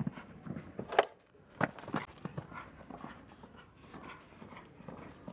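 A show-jumping horse cantering on arena sand: an uneven run of hoofbeats and breaths, with a sharp, loud knock about a second in and two more strong strikes soon after as it clears a fence.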